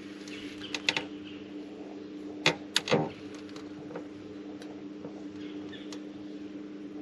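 Steady low hum of an electric trolling motor, with sharp clicks and knocks from a fishing rod and reel being handled and cast, a few about a second in and the loudest cluster about two and a half to three seconds in.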